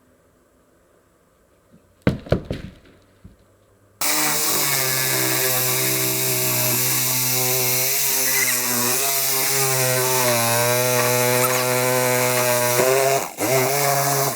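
A few sharp knocks, then a chainsaw running at high revs and cutting through a wooden wall stud. Its pitch wavers and sags under the load, dips near the end, then the saw stops.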